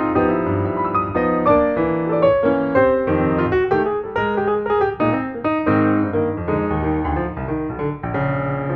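Instrumental background music led by piano, a steady flow of notes and chords.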